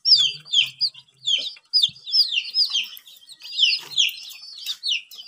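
Young chicks peeping: a rapid run of short, high, falling peeps, about three a second, from several birds.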